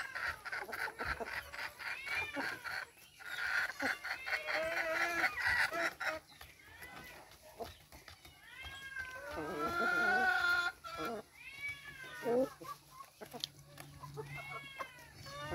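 Hens clucking and giving drawn-out calls as they feed on split coconuts, the longest and loudest call coming about ten seconds in. Rapid light taps of beaks pecking the coconut flesh run through the first several seconds.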